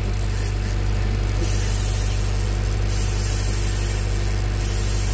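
Engine running steadily at idle with a constant low hum, with no change in speed.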